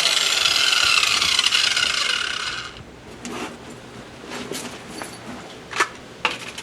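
Hand-held grinder grinding the steel edge of a Bush Hog rotary-cutter blade, its pitch slowly falling as it winds down, fading out about two and a half seconds in. A few light clicks and taps follow.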